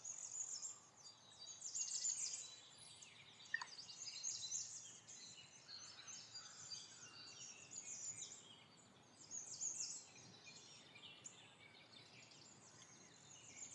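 Faint small-bird chirping and twittering in the background: many short, high chirps scattered throughout, with one brief rising whistle about three and a half seconds in.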